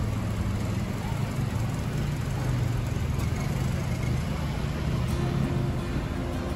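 Street traffic: a vehicle engine running steadily close by, a low hum under general road noise.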